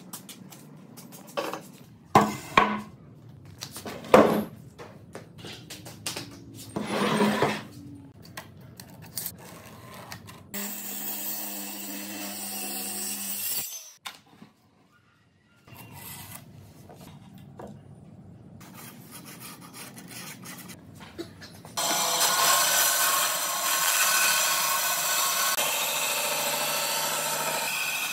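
Knocks and thumps of a heavy wooden slab being handled, then a machine running briefly with a low hum. About two-thirds of the way in, a bandsaw starts cutting through the thick wooden slab, a loud, steady rasping.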